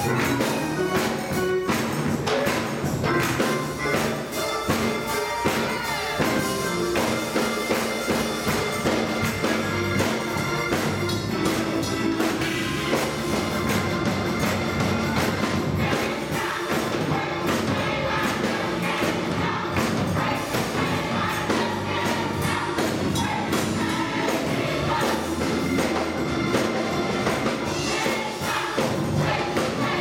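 Gospel choir singing a lively praise song together, with keyboard accompaniment and a steady beat.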